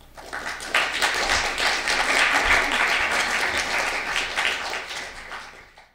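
Audience applauding, swelling up within the first second, then fading away over the last second.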